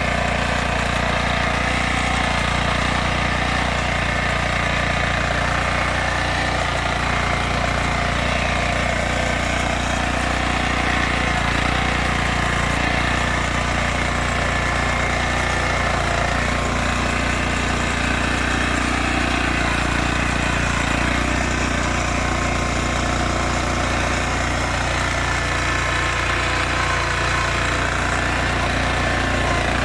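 Lombardini engine of a Yağmur YET 320 digging machine running steadily under load, with an even low throb.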